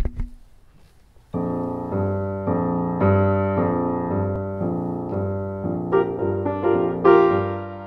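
Piano playing a boogie in B-flat major: a repeated chord-and-bass pattern enters about a second in at roughly two strokes a second, with higher right-hand notes joining near the end. A brief low thump at the very start.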